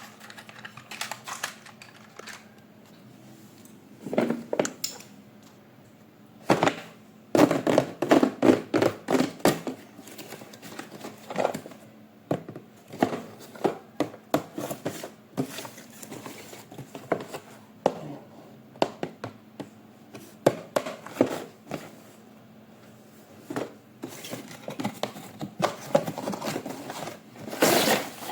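Toy packaging being handled and opened by hand: irregular crinkling and rustling of plastic and cardboard with small clicks and knocks. The busiest, loudest stretch comes a quarter of the way in, with another flurry near the end.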